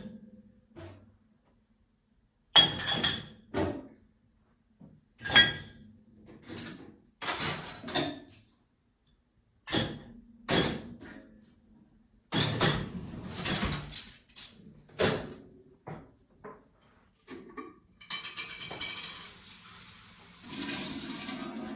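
Dishes and glassware clinking and knocking as they are handled and set down in a kitchen, a dozen or so separate clinks. About eighteen seconds in, water begins to run and keeps going to the end.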